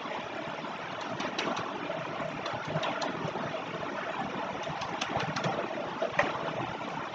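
Computer keyboard keys clicking in short, irregular bursts as code is typed and deleted, over a steady background hiss and hum.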